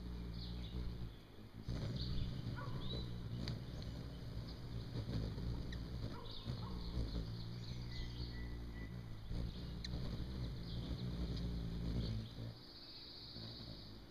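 Hummingbirds' wings humming as they hover at a feeder: a low buzzing drone that eases off near the end. Short chirps and a high trill sound over it.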